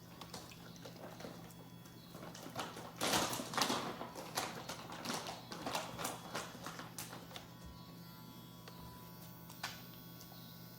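Casfuy electric dog nail grinder motor running with a steady low hum. A cluster of scuffs and clicks starts about three seconds in and lasts some four seconds, as the dog's claws are handled and ground.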